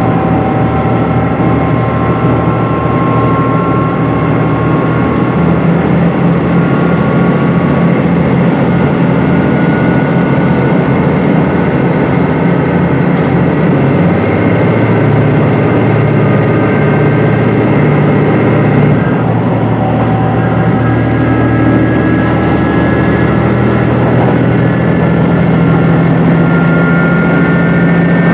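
Running noise from inside a HOT7000-series diesel railcar in motion: a steady low diesel drone with whining tones that climb step by step. About 19 seconds in the whine drops away, then climbs again.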